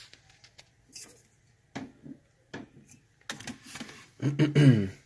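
Small clicks and taps of lock pins and parts being handled on a hard surface, then a brief low voice sound, like a hum, about four seconds in.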